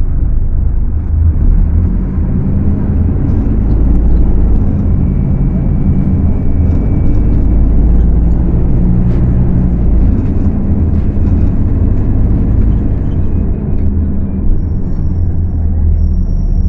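Scania K250UB city bus's rear-mounted diesel engine running under way: a loud, continuous low rumble whose note shifts up and down a little as the revs change.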